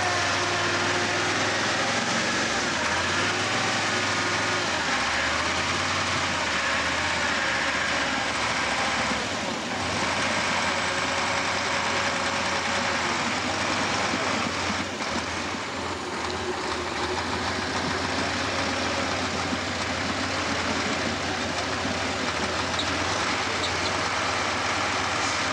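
Heavy trial truck's diesel engine running steadily, with a short dip in the sound about ten seconds in.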